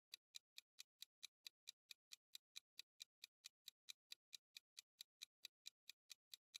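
Faint clock-tick sound effect counting down a quiz timer: short, even ticks at about four and a half a second.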